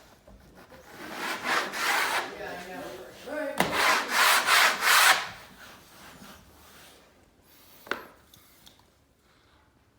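Wallpaper spatula drawn firmly across the wallpaper's surface in scraping rubs, pressing excess glue out from under the paper; the loudest run of strokes comes around four to five seconds in. A single sharp click near eight seconds.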